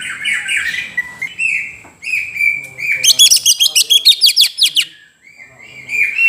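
Cucak ijo (green leafbird) singing a varied run of repeated whistled notes, breaking into a rapid burst of loud, high chirps halfway through, then pausing briefly before starting again.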